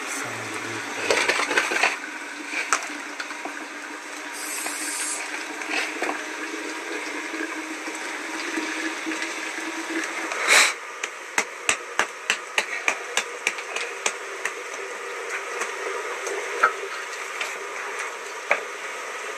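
Open wood fire burning under kettles in a floor fire pit: a steady hiss with irregular sharp crackles. A loud crack comes about ten seconds in, and the crackles come thicker after it.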